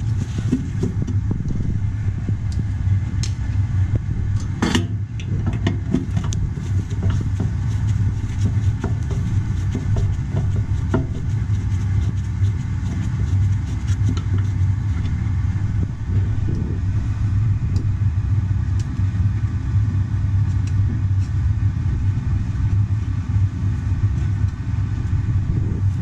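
Steady low machine hum, with a few light metallic clicks and taps as a screwdriver works the screws of a furnace's high-limit switch.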